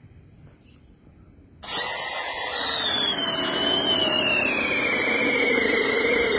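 Electric drill boring through the house wall: its motor starts about a second and a half in with a loud whine that slides steadily down in pitch as it works through, then stops abruptly near the end.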